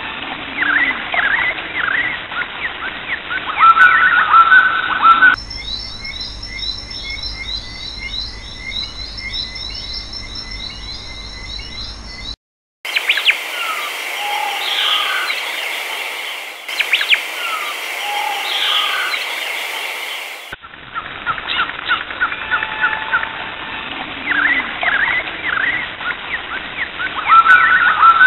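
Recorded birdsong: many birds chirping and calling, in separate recordings that cut abruptly from one to the next about every few seconds, with a short gap about twelve seconds in.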